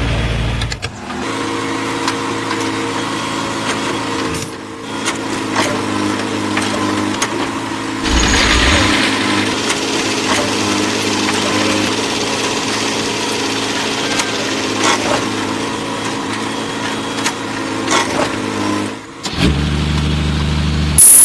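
A small motor running steadily, starting about a second in and stopping shortly before the end.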